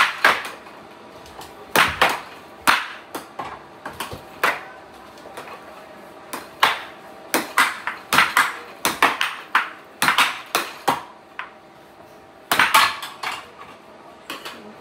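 Plastic air hockey mallets hitting the puck, and the puck clacking around the table: an irregular string of sharp knocks, some in quick runs.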